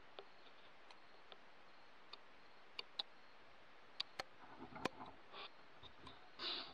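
Faint, sharp clicks, about a dozen at irregular intervals, over a low steady hiss, with a brief louder hiss-like burst near the end.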